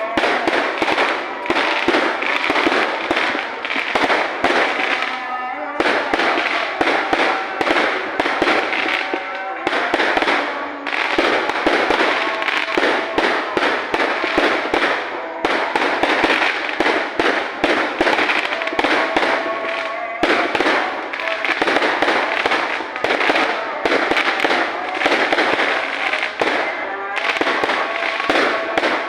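Fireworks going off in a dense, rapid barrage of bangs and crackles, easing briefly every few seconds before picking up again.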